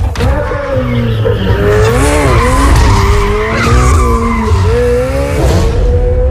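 Ferrari 488 GTB's twin-turbo V8 revving, its pitch rising and falling several times, while the tyres squeal and skid as the car slides sideways.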